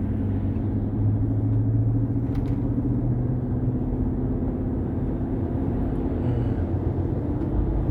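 Inside the cab of a moving GMC Denali: road noise under a steady low drivetrain hum, strongest for a couple of seconds near the start, then easing a little. The hum has survived a differential replacement, and the mechanic suspects the transmission or transfer case rather than the differential.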